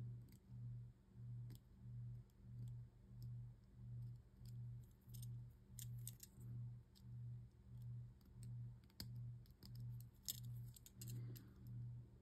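Faint clicks and scrapes of a box knife trimming excess plastic from small plastic Beyblade parts, over a low hum that pulses about one and a half times a second.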